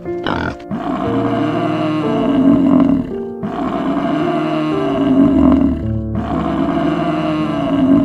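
Three long bellowing calls from a large bovine, each about two and a half seconds, rising then falling in pitch, over soft piano music.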